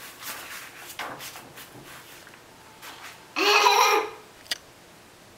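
A toddler's short, loud vocal sound, about half a second long, some three and a half seconds in, following soft scattered rustles and knocks; a sharp click comes about a second after it.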